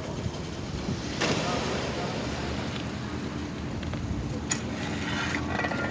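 Steady low engine rumble of construction machinery, with a short clattering burst about a second in and faint voices in the background.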